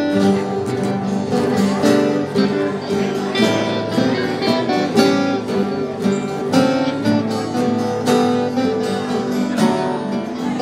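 Acoustic guitar music: chords plucked and strummed at an even pace.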